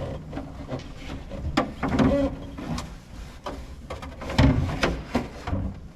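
Irregular clicks, knocks and rattles of plastic trim and metal parts being handled and pried apart while the tractor's loader joystick is disassembled.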